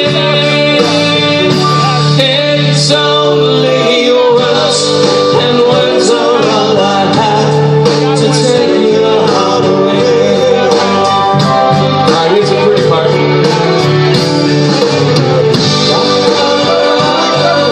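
A live band playing loud amplified music: a drum kit with cymbals, electric guitar and keyboards, with a woman singing into a microphone.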